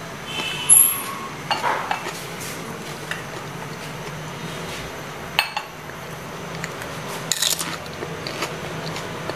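A white ceramic jug and plate clinking and knocking as the jug is handled on the plate: a ringing clink about a second in is the loudest, followed by a few duller knocks. A low steady hum runs underneath.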